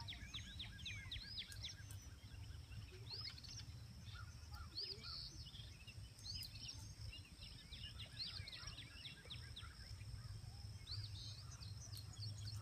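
Songbirds chirping and singing faintly in many quick, arching notes, over a low, steady rush of the flood-swollen river.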